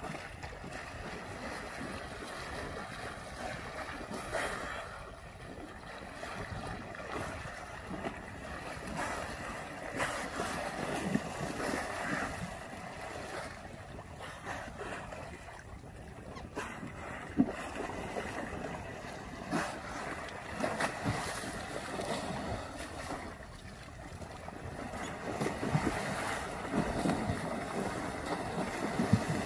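Small waves lapping and sloshing close by, with wind buffeting the microphone. The wash rises and falls unevenly, with a couple of brief sharp sounds.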